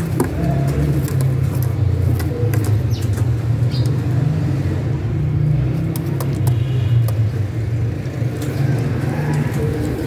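Pigeons cooing in a cage over a steady low rumble.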